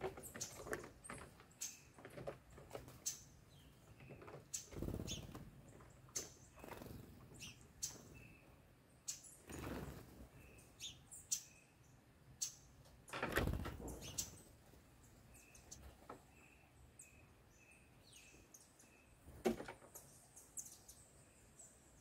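Small wild birds at a fruit feeder on a corrugated fibre-cement roof: scattered chirps and short calls, with a run of short, evenly spaced notes in the second half. Around them are quick taps and scrabbles of feet and beaks on the roof and fruit, and a few louder rustling swishes.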